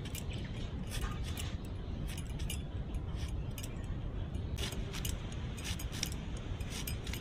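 Peeled raw ginger being sliced into long strips on a boti, a fixed upright curved blade: a run of sharp, irregular crisp clicks, a few each second, over steady low background noise.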